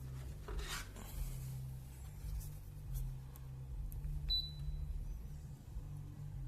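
Dreo Cruiser Pro tower fan running with a steady low hum. A few faint clicks, then one short high beep about four seconds in.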